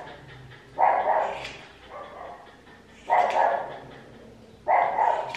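Small Bichon Maltese dog barking aggressively while being held for grooming: three loud barks about a second, three seconds and nearly five seconds in, with softer ones between.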